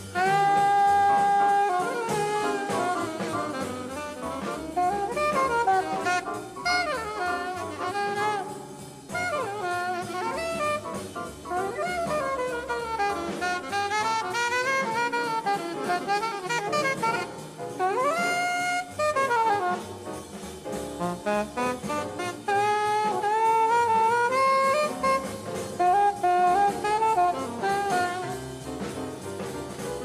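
Small-group bebop jazz: a saxophone plays a solo line that opens on a long held note and moves into quick runs with bending pitches, with drums behind it.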